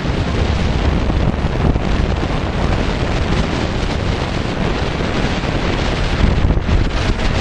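Wind buffeting the microphone of a camera travelling at riding speed behind a motor scooter: a steady, heavy rush with a deep rumble underneath.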